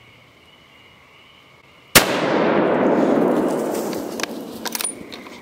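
A single gunshot: a sharp crack about two seconds in, followed by a loud rolling echo that fades over about three seconds, with a few light clicks near the end.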